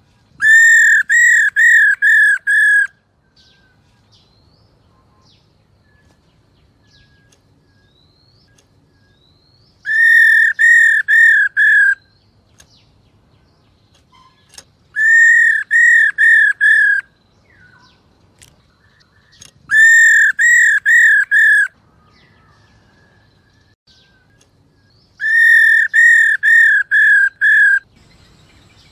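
Black-throated laughingthrush calling in five bursts of about five or six clear, arched whistled notes repeated quickly, each burst about two seconds long and several seconds apart.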